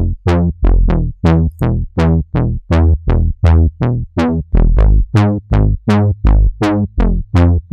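Native Instruments Massive saw-wave synth bass patch, low-pass filtered, playing a looped bass line of short, punchy notes at about three a second, with three-voice unison switched on. Each note starts bright and quickly darkens over a strong low end, in a trombone-like house bass style.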